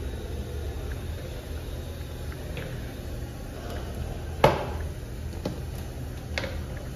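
Plastic toilet seat and lid of an American Standard Madera toilet being lifted and lowered by hand. There is a sharp clack about four and a half seconds in and a lighter clack near the end, over a steady low hum.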